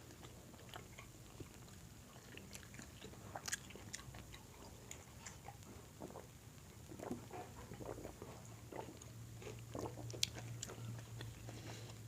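Faint close-up eating sounds: a person chewing and biting food, with scattered small crunches and mouth clicks at an irregular pace.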